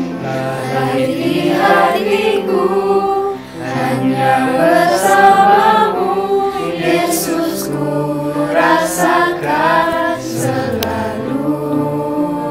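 Mixed choir of young men's and women's voices singing a Christmas song in harmony, with held chords and shifting parts.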